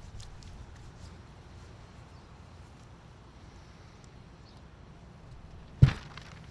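Quiet room tone with a low steady hum and a few faint scattered clicks, then one sharp thump near the end.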